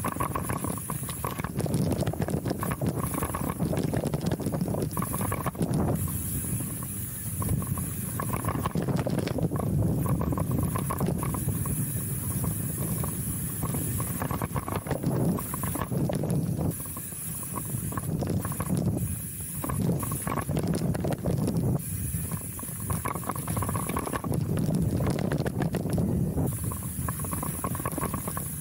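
Chromag Rootdown hardtail mountain bike riding over dirt singletrack: tyres rolling on dirt and the bike rattling, with wind rushing over the microphone. The noise swells and eases every few seconds with the speed and the terrain.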